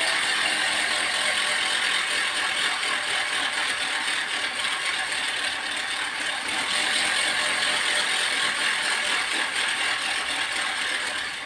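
A spoked wheel spinning with a strip tucked between its spokes, the strip flapping against each passing spoke to make a steady, fast rattling buzz ('gir gir gir').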